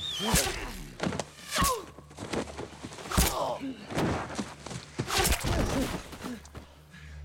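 Men crying out and grunting in pain, with several heavy thuds as bodies hit the forest floor.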